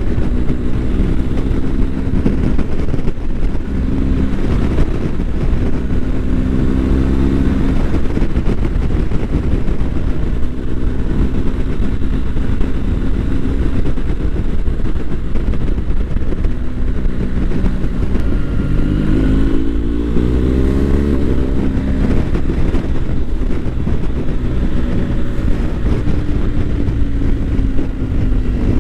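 BMW GS boxer-twin motorcycle engine running on the move, its pitch rising and falling with the throttle, with a clear rise about two-thirds of the way through, over a steady low rumble.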